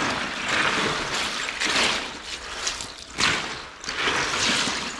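Water pouring and splashing in several swells: cooked spanner crabs are being lifted out of a pot of boiling water in a wire strainer ladle, with water streaming back off it, and dropped into an icy brine slurry.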